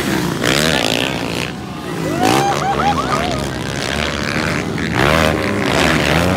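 Motocross dirt bike engines revving hard, their pitch rising and falling again and again as riders open and close the throttle over the jumps.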